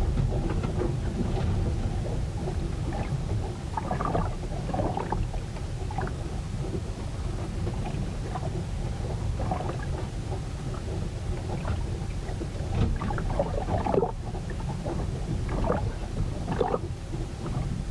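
Storm at sea heard aboard a ship: a steady deep rumble of wind and waves, broken every second or two by irregular splashes and knocks of water.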